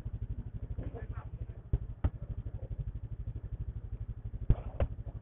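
Motorcycle engine idling with an even, rapid low pulse of about a dozen beats a second, broken by a few sharp knocks about two seconds in and again near the end.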